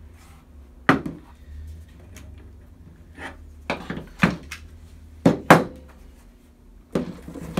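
Half a dozen sharp clicks and knocks from a Milwaukee M18 Fuel Sawzall cordless reciprocating saw being handled and set down on a table; the saw is not running.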